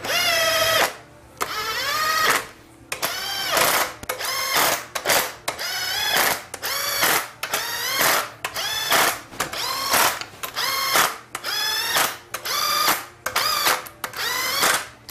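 Cordless drill-driver running in the bolts of a 4L60E transmission's valve body, a dozen or so short trigger pulls. Each run is a motor whine that rises in pitch and then stops as the bolt seats, snugged short of full tightness before torquing.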